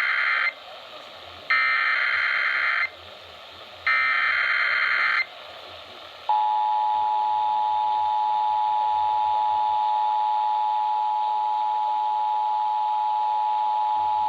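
Emergency Alert System test over broadcast audio. It opens with the tail of one SAME digital header burst, then two more screeching data bursts of about a second and a half each, a second apart. About six seconds in, the EAS two-tone attention signal starts and holds steady for about eight seconds.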